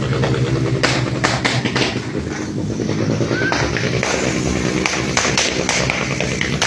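New Year firecrackers popping at irregular intervals, a few sharp cracks a second, over a steady low hum.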